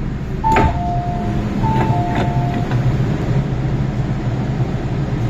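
MTR M-Train at a station stop: a two-note chime, high then low, sounds twice as the doors slide open with a few sharp clunks, over the train's steady low hum.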